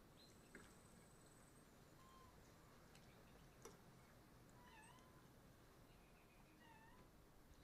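Near silence with two faint, short animal calls about two seconds apart, each dipping and then rising in pitch, and a couple of faint clicks.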